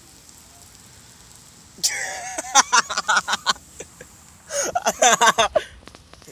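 A person laughing in two loud bursts, the first about two seconds in and the second near the end, with a faint steady background before it.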